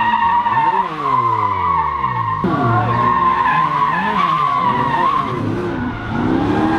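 A car drifting on concrete, its tyres squealing steadily while the engine revs rise and fall over and over as the driver works the throttle through the slide.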